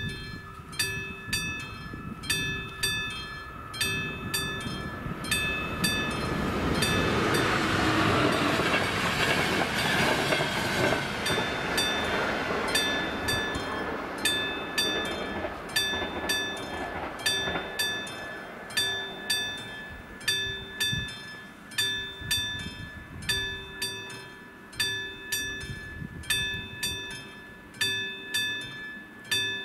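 Level-crossing warning bell of AŽD 71 signals ringing steadily, about one strike a second. A train passes partway through, its rumble swelling and then fading over about ten seconds.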